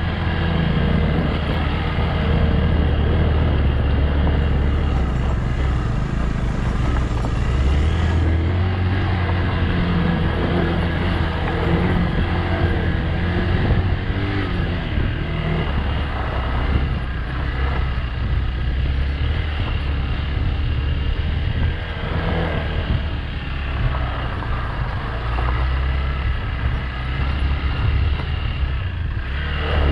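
Motorcycle engine running while riding on an off-road trail, its note shifting up and down with the throttle.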